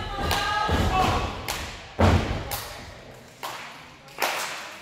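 Several heavy thuds on a wrestling ring's mat as the wrestlers hit and land on the canvas, the loudest about two seconds in. A voice shouts over the first second.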